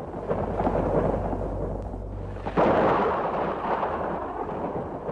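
A loud crackling rumble that starts suddenly and surges sharply about two and a half seconds in, then slowly dies away.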